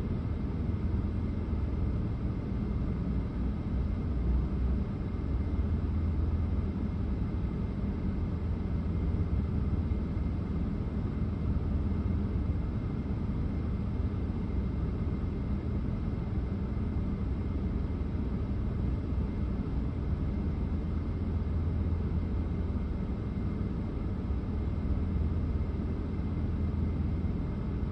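Steady low rumble of a vehicle running, even throughout with no distinct events.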